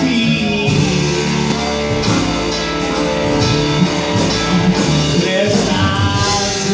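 Live band music with no vocals: saxophone playing over banjo, electric guitar, upright bass and drum.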